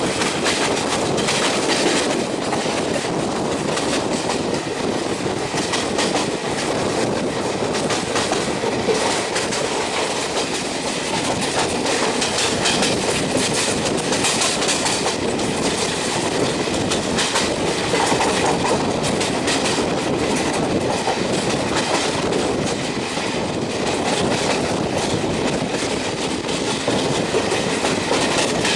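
Goa Express passenger coaches running at speed, heard from an open coach door: a steady rush of wheel and wind noise with frequent sharp clicks and clatters as the wheels cross rail joints and points.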